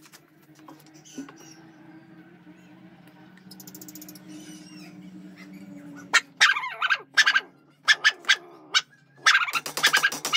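A faint steady low hum, then from about six seconds in, loud short animal calls repeated in quick clusters.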